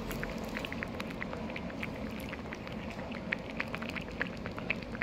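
Braised cutlassfish stew simmering in a pot on a tabletop gas burner: the thick red sauce bubbles with many small, irregular pops.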